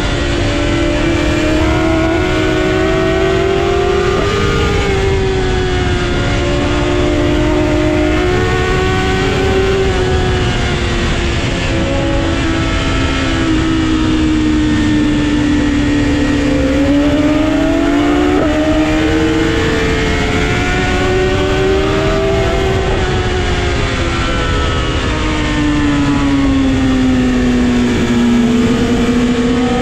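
Sport motorcycle engine under way, rising and falling in pitch again and again as the rider rolls off and accelerates through a run of curves, over a steady low rush of wind noise.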